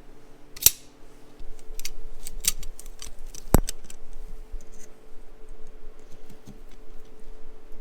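Scattered sharp clicks and metallic taps from tools and parts being handled, with one louder knock about three and a half seconds in, over a faint steady hum.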